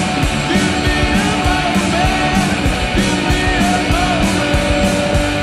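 Rock music with electric guitar over a steady beat of about three drum hits a second.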